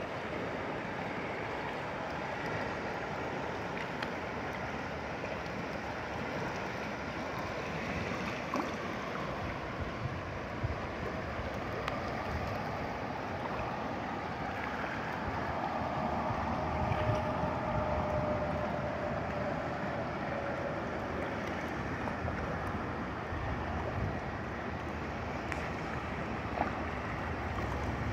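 Fast-flowing river rushing over rocks and small rapids: a steady wash of water noise. A faint, short falling tone shows up about halfway through.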